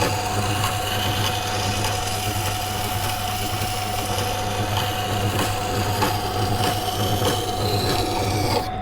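Carbon-steel knife blade being ground on a water-cooled stone wheel grinder to form the secondary bevel: a steady scraping hiss over the motor's hum. Near the end the blade comes off the wheel and only the motor keeps running.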